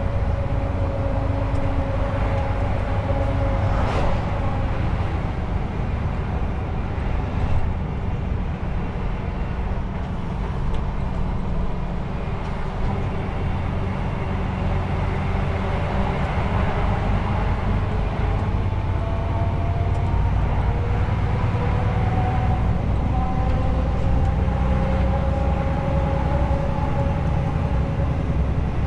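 Truck's diesel engine running under way, heard inside the cab: a steady low rumble with a drone that slowly rises and falls in pitch, over road noise. A sharp click comes about four seconds in and a short thump about seven and a half seconds in.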